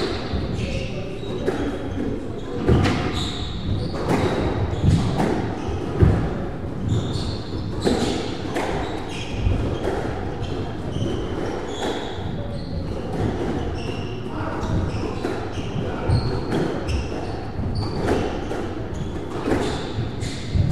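Squash rally: the rubber ball is struck by rackets and smacks off the court walls again and again, with sneakers squeaking on the wooden floor and running footsteps between the shots.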